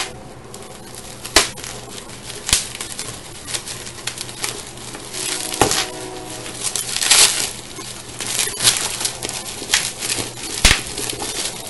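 Plastic bubble wrap crinkling and crackling as a taped parcel is handled and cut open, with scattered sharp clicks and a longer crackle about seven seconds in.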